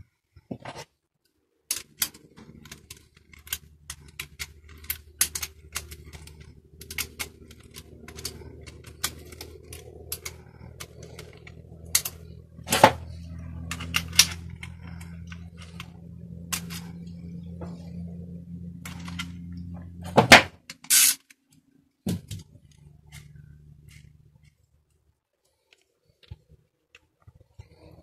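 Irregular clicks, taps and knocks of hands handling a plastic BMX pedal, its small metal parts and hand tools on a workbench, with a few louder knocks. A steady low hum sits underneath most of it.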